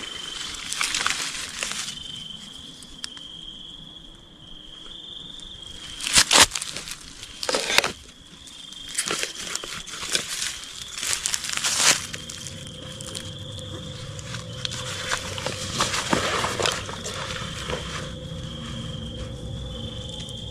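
A steady high-pitched insect drone over crackling rustles of leaves or clothing, with several sharp, louder rustles.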